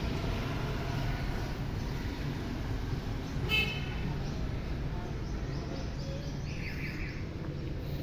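Steady low rumble of outdoor urban background noise, with one brief high-pitched toot about three and a half seconds in.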